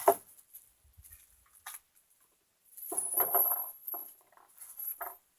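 Parts of a metal chop saw stand being handled during assembly: a sharp clack right at the start, then a longer stretch of handling noise about three seconds in, with a few lighter knocks.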